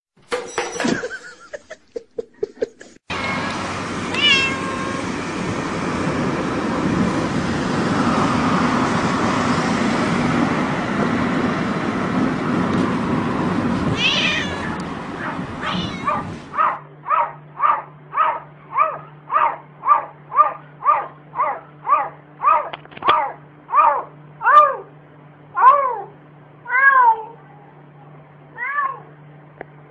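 Plastic water bottles clattering over as a cat knocks them down, then cat meows over a steady rushing noise, then a cat meowing over and over in a quick rhythm, about three short falling calls every two seconds, slowing near the end.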